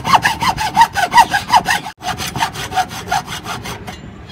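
Hand hacksaw cutting across a bamboo tube in rapid back-and-forth strokes, about six a second, each stroke with a short rasping squeal. The sawing breaks off for an instant about two seconds in, resumes more lightly, and stops near the end.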